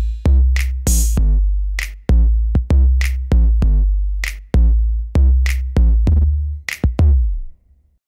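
Electronic drum-machine beat of deep bass-drum hits with long low tails and sharp clap-like hits, about two hits a second. It stops abruptly near the end.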